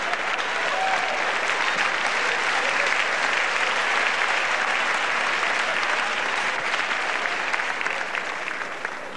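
Audience applauding, a dense steady patter of many hands clapping that eases off a little near the end.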